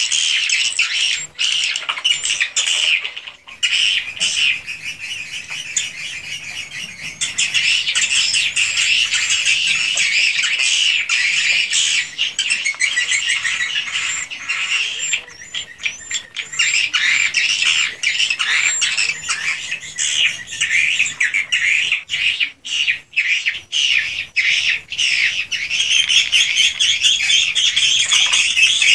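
Many swiftlets calling together inside a swiftlet house: a dense, continuous chorus of rapid high chirps and twitters, with a few brief lulls.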